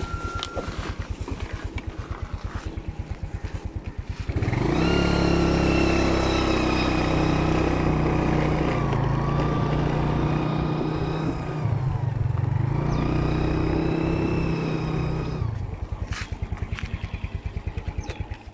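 Yamaha scooter's single-cylinder engine idling with a rapid even pulse, then pulling away and running at a steady engine note for about ten seconds. The throttle eases briefly in the middle. It drops back to idle and cuts out at the very end.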